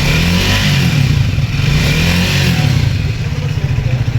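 Triumph Speed 400's single-cylinder engine running on the move, its pitch rising and falling with the throttle, over a steady rushing hiss.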